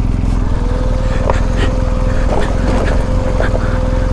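BMW GS Adventure's boxer-twin engine running at low, steady revs as the motorcycle crawls over bare rock, with a steady whine joining in about half a second in. Scattered clicks and knocks sound over it.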